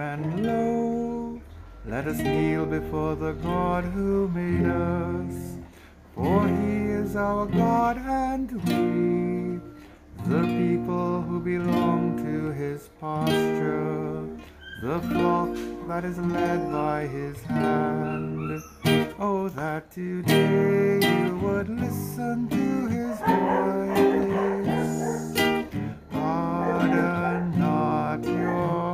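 Acoustic guitar music: strummed and plucked chords of the psalm accompaniment, in phrases of a few seconds with short pauses between them.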